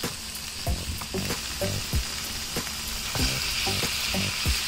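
Diced deer liver and heart dropping into a hot pan of fried onions and sizzling, with irregular short knocks and scrapes of a cutting board and wooden spatula against the pan. The sizzle grows louder about three seconds in as more meat hits the oil.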